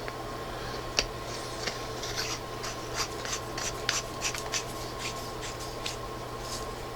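GearLight S2500 flashlight being screwed back together by hand: a run of short scraping rubs and small clicks as the threaded parts are turned and the battery carrier seats.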